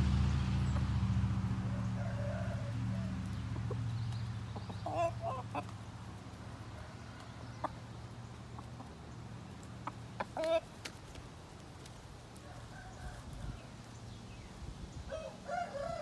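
Chickens clucking and giving short calls: a few near five seconds in, one loud call about ten seconds in, and a quick run of clucks near the end. A low steady hum fades away over the first half.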